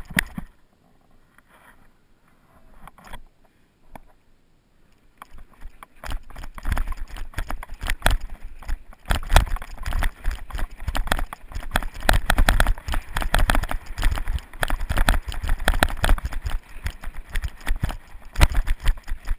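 A mountain bike jolting down a bumpy snow slope: dense rattling and knocking from the bike and its handlebar-mounted camera, with wind rumbling on the microphone. Only a few knocks for the first six seconds, then continuous clatter from about six seconds in.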